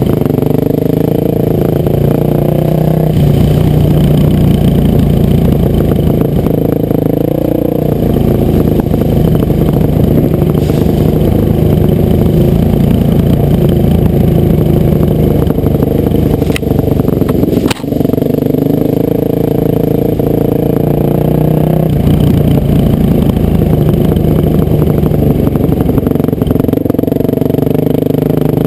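Dirt bike engine running loud and close, its pitch rising and falling as the throttle is worked. Two sharp clicks come a little past halfway.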